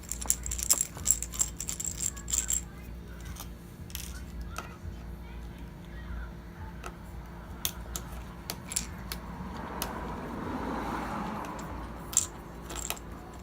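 Sharp metallic clicks and clinks of a Torx screwdriver and small screws being taken out of the iMac's bezel, a quick cluster in the first two or three seconds and scattered ones after, over a steady low hum.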